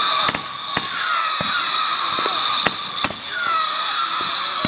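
Consumer fireworks going off: a steady hissing spray with whistles that fall in pitch, broken by about five sharp pops.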